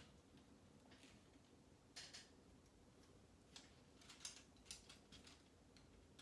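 Faint, scattered clicks of plastic Lego pieces being handled and pressed together, at irregular intervals with a few in quick succession around the middle.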